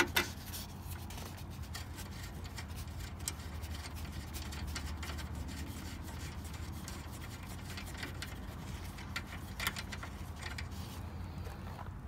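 Fingers spinning finger-tight nuts off the door-latch studs inside a truck door: faint scattered clicks and small scrapes of metal and plastic, over a steady low hum.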